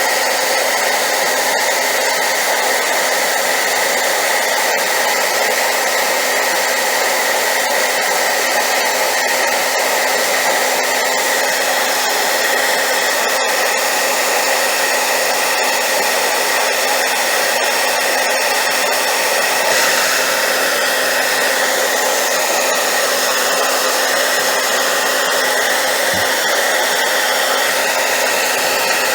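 Hairdryer running steadily at high power, a loud even rush of air with a faint motor hum underneath.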